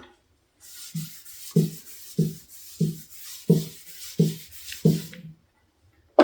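A cloth rag rubbing wood stain off stripped wood, wiping with the grain in rhythmic strokes of about one and a half a second. Each stroke gives a soft thump. A sharp knock comes at the very end.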